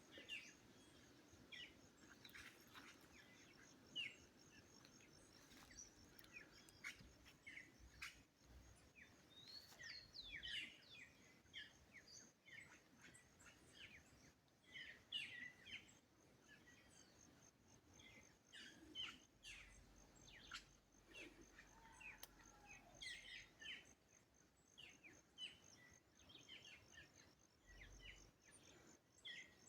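Several wild birds chirping and singing in short, quick phrases, one after another, over a faint steady high-pitched pulsing tone.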